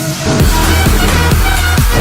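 Electronic dance music with a heavy bass line and a steady kick drum, the bass and beat coming in about half a second in.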